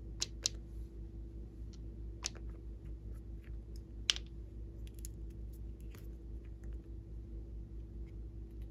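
Sharp clicks and taps of small plastic containers being handled and twisted open: two close together at the start, one about two seconds in, the loudest about four seconds in, then lighter ticks. A steady low hum runs underneath.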